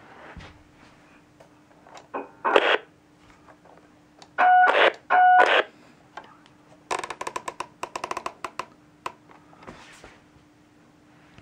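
DNT High Tec HT-4012 portable CB radio in AM receive: a faint steady hum, short loud bursts from its speaker, two of them carrying a steady tone, then a rapid run of clicks as the channel selector is stepped from channel 40 down to 20.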